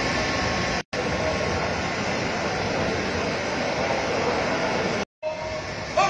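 Steady background hiss of a large hall, cut off twice for a split second by edits, about a second in and near the end.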